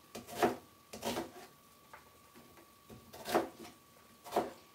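Kitchen knife cutting an onion into wedges on a cutting board: four separate chopping strokes, knocking on the board at uneven intervals about a second or two apart.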